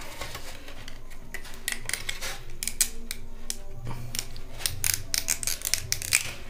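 Plastic clicking, snapping and scraping as the yellow nose canopy of a toy RC helicopter is pried off its frame by hand. It comes as a run of small sharp clicks, busiest in the second half.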